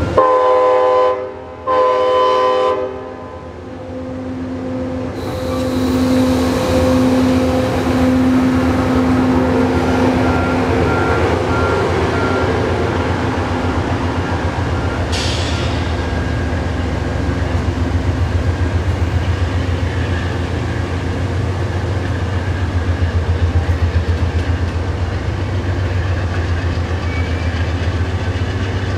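Amtrak GE Genesis P42DC diesel locomotive sounding its horn in two short blasts as it passes, then its engine running. This is followed by the steady rumble of double-deck Superliner passenger cars rolling by on the rails.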